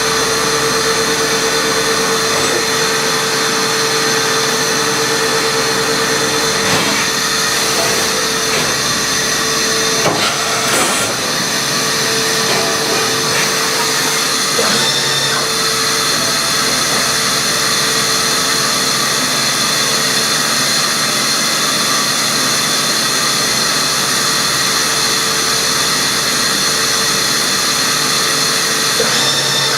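Matsuura MAM72-63V 5-axis CNC machining center running: a steady machine hum with several high whines, one mid whine coming and going, and a few brief clatters.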